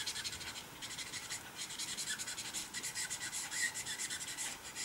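Alcohol marker nib rubbing over paper in quick, repeated short strokes as skin is coloured in, a faint scratchy sound.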